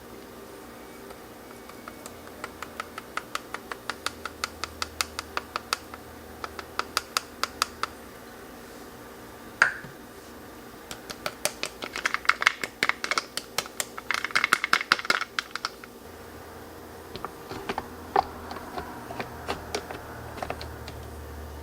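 Light, sharp clicks and taps from handling coffee-making gear. They come in runs: about four or five a second at first, then one loud click, then a denser, louder flurry, then scattered clicks, with a low hum rising near the end.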